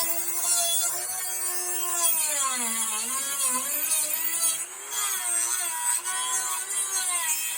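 Dremel rotary tool cutting into a pine block, a high whine with a grinding hiss. Its pitch sags and recovers as the bit bogs under load, dipping deepest about three seconds in, the friction scorching the wood until it smokes.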